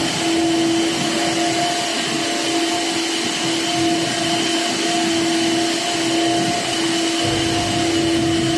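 Shipboard machinery running: a steady loud whine, one held tone with its octave above, over an even rushing noise. A low rumble joins about seven seconds in.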